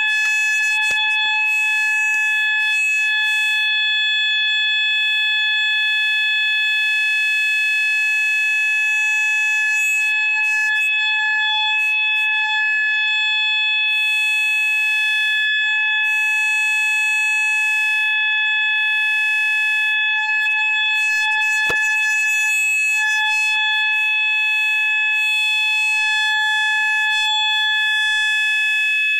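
Fire alarm sounder set to its factory-default 800 Hz continuous tone, sounding in alarm after the pull station is pulled. It comes on suddenly and holds one steady, unbroken tone. A single sharp click cuts through about three quarters of the way in.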